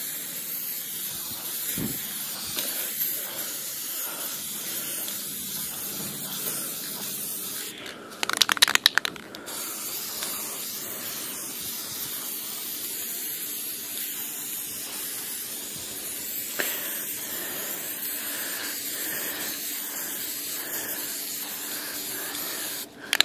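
Aerosol spray-paint can spraying in a steady hiss, broken about eight seconds in by a short, louder burst of rapid clicks.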